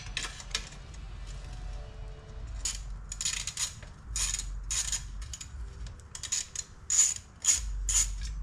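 Hand socket ratchet clicking in repeated bursts as it backs out a radiator-guard bolt on a dirt bike, the clicks starting about a third of the way in and coming thicker near the end.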